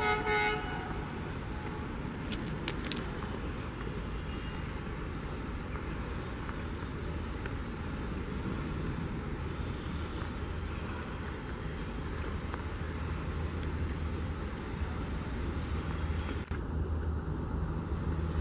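ALCO WDM3A diesel locomotive (ALCO 251 V16 engine) approaching from a distance: a steady low engine rumble that grows louder over the last few seconds. The tail of a horn blast fades out in the first half-second, and a bird gives short high chirps now and then.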